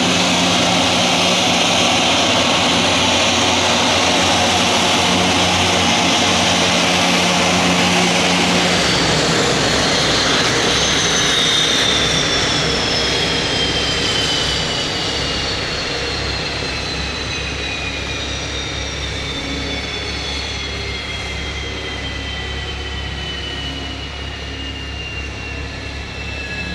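Honeywell TPE331-12 turboprop on an Antonov An-2 being shut down. The low propeller and engine sound drops away about nine seconds in, then the turbine's high whine falls steadily in pitch and fades as it spools down.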